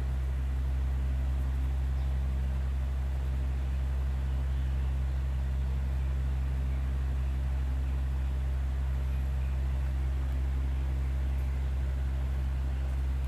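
A steady low hum with a faint hiss above it, unchanging throughout; any pencil scratching is buried under it.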